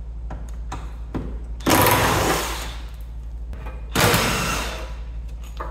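Impact wrench run in two bursts of about a second each, undoing the exhaust fixings so the exhaust can be dropped, with a steady low hum underneath.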